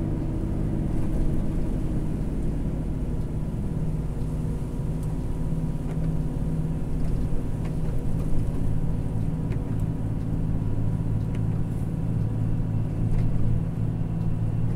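Volvo FH truck's diesel engine running steadily under the cab, heard from inside the cab on a downhill run. Its note shifts lower about four seconds in.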